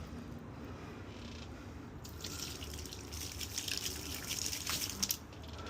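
Water dripping and spattering at an open water line held shut by a Jet Swet plug, with the water on at full pressure. The spatter picks up about two seconds in and stops abruptly near the end.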